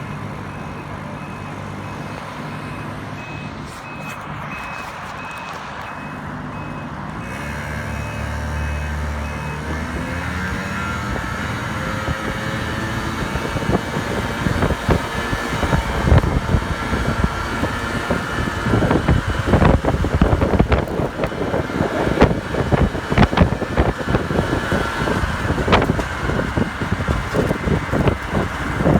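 Small moped engine running, then revving up with rising pitch about a third of the way in and running hard under load, with wind buffeting the microphone later on. A repeating electronic beep sounds over it for roughly the first third.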